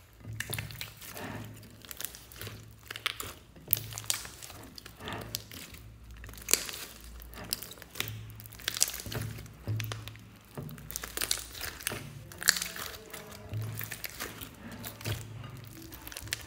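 Hands kneading and squeezing a large mass of slime mixed with clay, making frequent sticky pops and crackles. Background music with a steady bass line plays under them.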